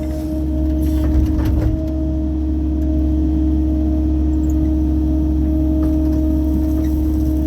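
Mini excavator running steadily under work, a deep engine drone with a constant whine on top, and a few knocks about a second in.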